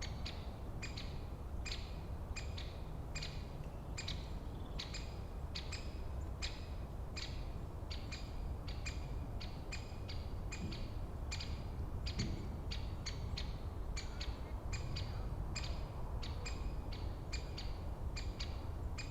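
A bird repeating one short, high call over and over, a little more than once a second, over a steady low rumble of forest ambience.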